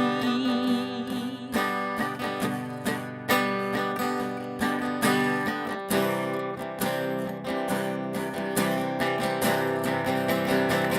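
Acoustic guitar strummed in a steady rhythm, playing out the end of a folk song. The last sung note of the refrain is held and wavers for the first second or so before it ends.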